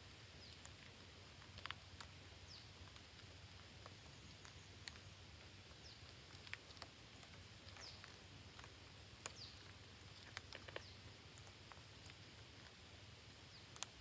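Near silence with faint scattered clicks and rustles and a few short, high chirps falling in pitch, from parrots perched and moving about among leafy branches.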